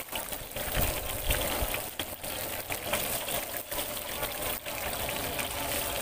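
Battered mackerel and shrimp deep-frying in woks of hot oil: a steady sizzle while tongs turn the pieces.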